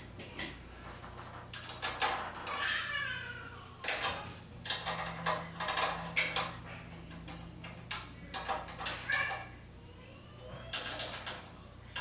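Metal clicks and clanks from handwork on a garage door torsion spring and its bar with a steel rod: a few sharp knocks several seconds apart, with scuffing and a short squeak a couple of seconds in.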